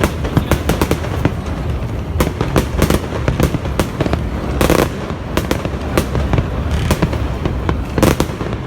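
Fireworks display: many sharp cracks and bangs in quick succession, with a longer, louder burst about halfway through and another near the end.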